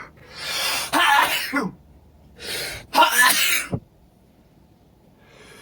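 A man sneezing twice, about a second in and again about three seconds in, each sneeze preceded by a quick drawn-in breath: allergy sneezes following a hitching build-up.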